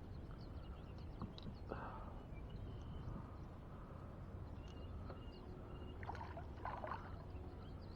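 Faint steady river and outdoor background noise with scattered light ticks, a few short high chirps, and a brief rustling flurry about six to seven seconds in.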